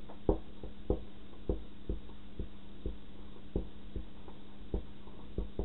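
Felt-tip marker writing on a small handheld whiteboard: a string of short, irregular taps and strokes, about two a second, over a steady low hum.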